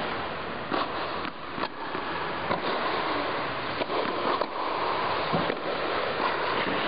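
Tennis racket strikes and ball bounces on an indoor hard court: several sharp, irregularly spaced pops over a steady background hiss.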